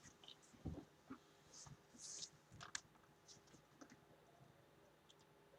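Near silence: room tone with a few faint, scattered clicks and soft rustles.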